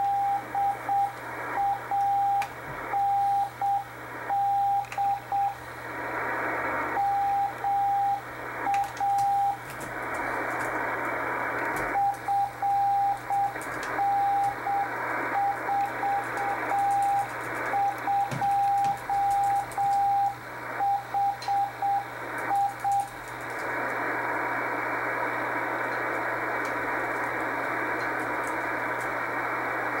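Very slow Morse code (CW) from a shortwave receiver: a single steady beep keyed on and off at about 7 or 8 words per minute over band hiss, the automatic beacon of experimental station WI2XJP repeating its callsign, location and grid locator. The keying stops about three quarters of the way through, leaving only the receiver's static hiss.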